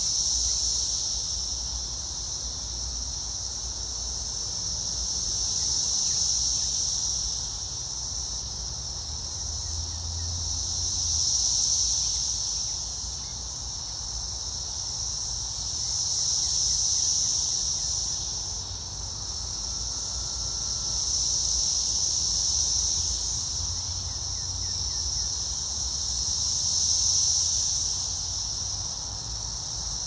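Chorus of Brood X periodical cicadas in the trees: a continuous high-pitched buzz that swells and fades in slow waves about every five seconds.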